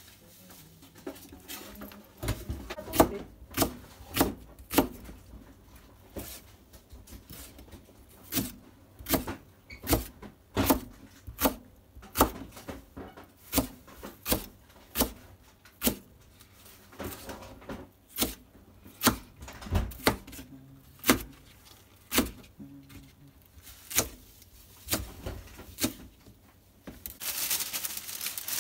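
Kitchen knife chopping through a Japanese long green onion (negi) onto a plastic cutting board: sharp, even knocks about one and a half a second, with a couple of short pauses. A brief hiss near the end.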